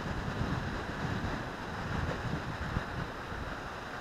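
Steady rush of water pouring from the dam's outlet gates into the tailwater, with wind buffeting the microphone in uneven low gusts.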